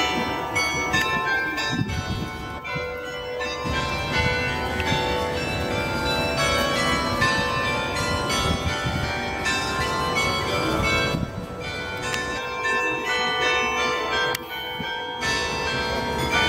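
Tower bells ringing: many bells of different pitches struck in quick succession, their tones overlapping and ringing on.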